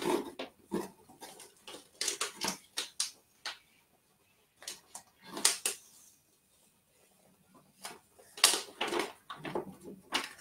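Cardboard box and paper packing being handled and rustled by hand: irregular crinkles, scrapes and light knocks, with a quiet stretch of a couple of seconds past the middle.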